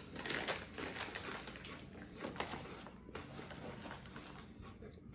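Close-miked eating: chewing with quick crackly clicks, densest in the first few seconds and thinning out towards the end.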